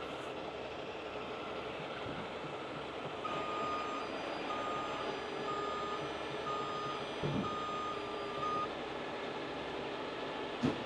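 A heavy truck's backup alarm beeping at an even pace, about seven beeps starting a few seconds in and stopping near the end, over the steady running of a diesel truck engine. A couple of short knocks come in, the sharpest just before the end.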